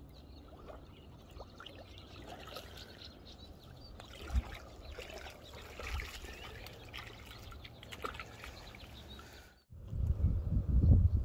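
Faint trickling and splashing of shallow river water as hands work in it at the bank. About ten seconds in, after a brief gap, a much louder low rumbling buffeting takes over.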